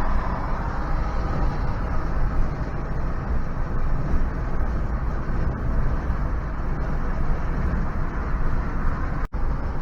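Steady road and tyre noise inside the cabin of a Nissan Leaf electric car cruising on the highway, with no engine sound. The sound drops out for an instant near the end.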